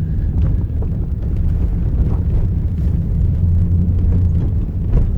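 Low, steady rumble of a vehicle on the move.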